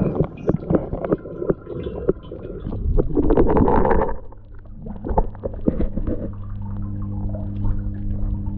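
Water sloshing and splashing, with knocks from the waterproof camera being handled as it is lifted out of an indoor koi pond, over a steady low hum of the pond's pump equipment. About six seconds in a second steady hum starts.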